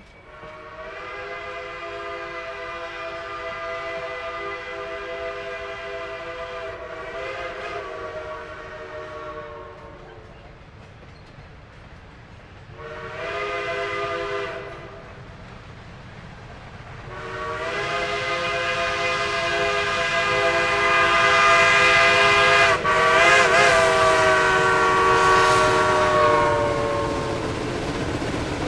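Steam locomotive chime whistle blowing three blasts: long, short, then a long, loud final blast that wavers in pitch. Each blast drops slightly in pitch as it trails off.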